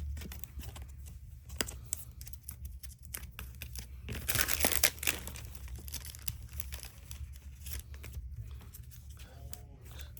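Plastic cello wrapper of a trading-card pack crinkling, with cards being handled and flicked in short clicks; a louder stretch of crinkling or tearing comes about four seconds in.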